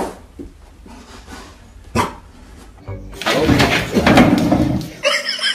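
A dog barking loudly and roughly for about a second and a half, after a single sharp knock about two seconds in.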